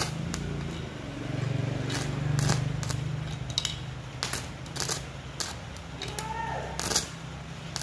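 Stick-welding arc crackling in irregular sharp snaps as the electrode is struck and restruck on scrap metal, over a steady low hum. This is a test weld showing that the repaired inverter welder now strikes and holds an arc.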